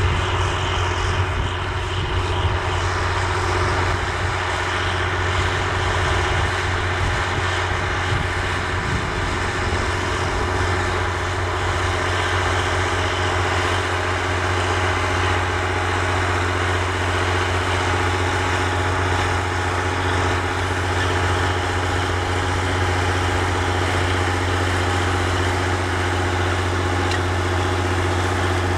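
John Deere 7020 four-wheel-drive tractor's turbocharged six-cylinder diesel running steadily under load while pulling a disk harrow, a steady low drone.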